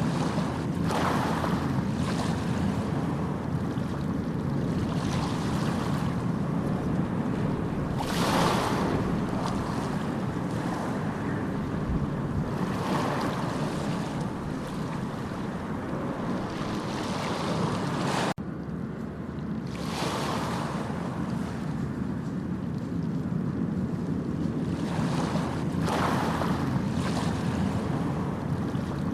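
Sea surf: a steady low rumble of water with a swelling hiss of a wave breaking every several seconds, and an abrupt cut about two-thirds of the way through.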